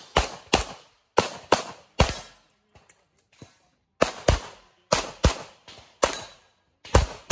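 Pistol shots fired in quick pairs, about a dozen in all, with a pause of about two seconds partway through while the shooter moves to new targets.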